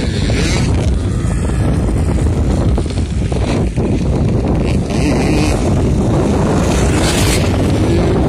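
Heavy wind buffeting the microphone, over the rising and falling engine note of motocross bikes riding the track.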